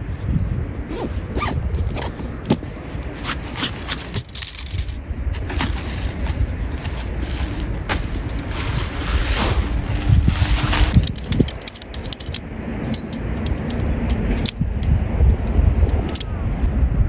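Nylon tent fabric and stuff sacks rustling and scraping while a tent is unpacked, with a longer, denser rasp a little past halfway. Wind rumbles on the microphone throughout.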